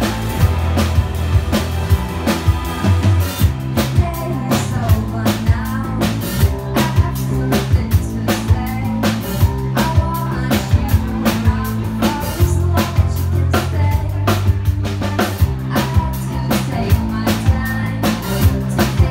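Live band playing: drum kit keeping a steady beat under an electric bass line, with a woman's lead vocal coming in about four seconds in.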